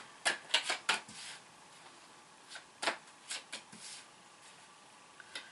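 Tarot cards being handled on a table: a quick run of light clicks and taps in the first second or so, then a few scattered single taps.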